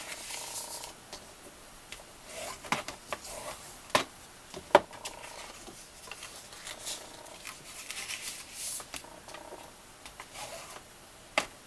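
Black cardstock rustling and sliding on a Scor-Pal scoring board as it is lined up and scored, with a few sharp taps and clicks, the loudest a little under five seconds in. Near the end a bone folder rubs along the score line.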